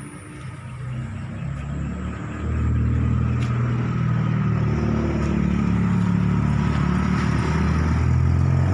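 A car engine running, getting louder about two and a half seconds in and then holding steady.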